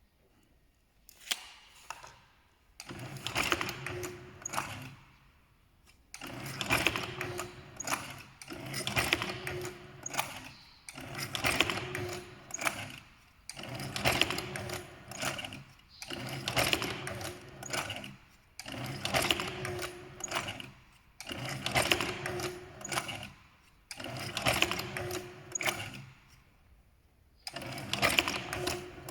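Semi-automatic dumpling machine running through repeated forming cycles: each cycle is a motor whir and mechanical clatter lasting about two seconds, then a brief pause, about one cycle every two and a half seconds. Each cycle folds one dumpling from a wrapper.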